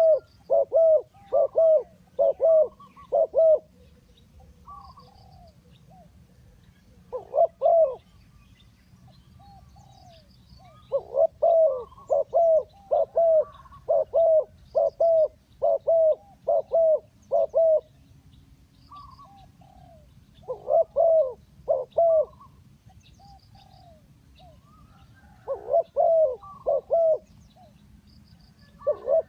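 Spotted dove cooing in runs of quick, repeated coos, the longest a run of about a dozen notes near the middle, with pauses of a few seconds between runs. Faint high chirps from small birds sound in the background.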